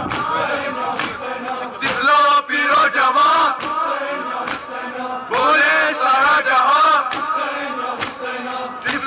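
A crowd of men chanting a Shia Muharram noha in unison, with the slaps of hands striking chests in matam about twice a second.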